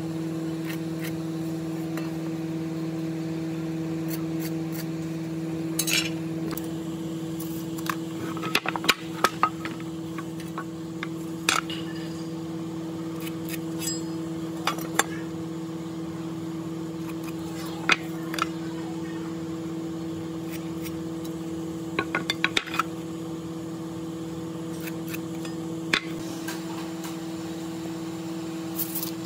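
A steady machine hum runs underneath scattered sharp clicks and knocks as hand tools (a metal rafter square, pencil and tape measure) and hardwood boards are handled and set down. The clicks come in short clusters, about nine seconds in and again about twenty-two seconds in.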